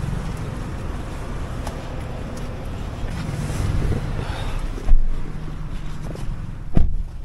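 Steady low rumble of street traffic through a car's open rear door while passengers climb into the back seat, with two sharp thumps about five and seven seconds in.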